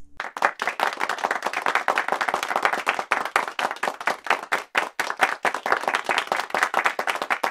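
Dense, irregular patter of many sharp clicks, like clapping, with no pitch to it.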